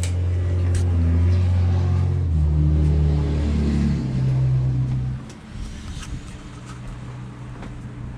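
A motor vehicle engine running close by, its pitch shifting in a few steps, then cutting away about five seconds in to a quieter background with a few light clicks.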